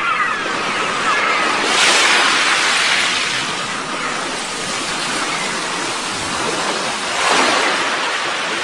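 Ocean surf: a steady rush of water with two waves swelling and breaking, one about two seconds in and one near the end.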